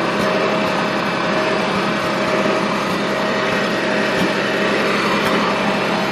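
Farmall 706 tractor engine running steadily while towing a sawmill, with a constant drone and whine throughout.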